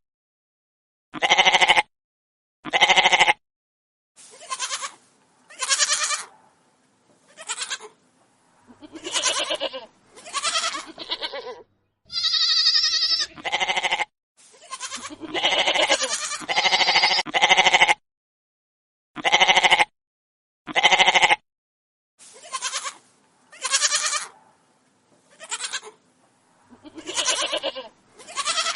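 Goats bleating: a string of separate quavering calls, each about half a second to a second long, with short silent gaps between them. One higher-pitched bleat comes about twelve seconds in.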